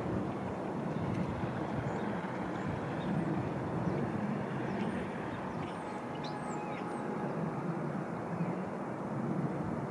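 Steady background rumble of distant traffic, with a few brief high bird chirps about halfway through.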